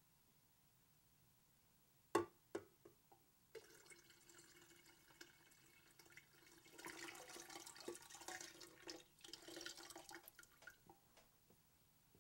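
Water poured from a cup into a glass fishbowl, splashing into the water for about six seconds and growing louder midway, after a couple of sharp clicks about two seconds in.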